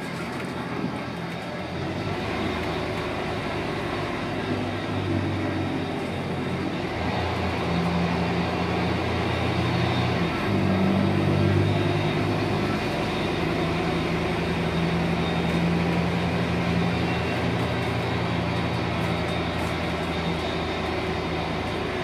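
Scania DC9 9.3-litre five-cylinder diesel of a Scania K280UB bus, heard from inside the passenger cabin as the bus drives. The engine note steps twice, about a third of the way in and near the middle, as the ZF Ecolife six-speed automatic changes gear, over steady road and body noise.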